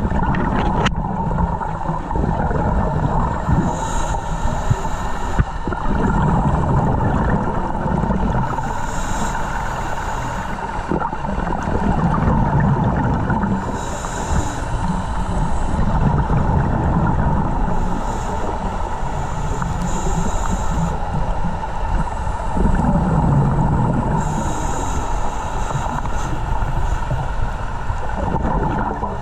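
Scuba regulator breathing heard underwater: a hiss on each inhalation, then a low bubbling rumble as the exhaled air escapes. The cycle repeats about every five seconds over a steady faint tone.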